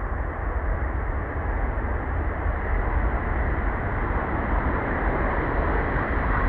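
Steady, loud, dull rumble of a heavy engine, strongest in the deep bass and without any high end.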